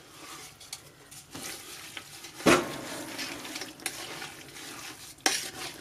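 Wooden spoon stirring wet shredded vegetables, sugar and spices in a stainless steel pot: a steady wet scraping swish, with two louder strokes about halfway through and near the end.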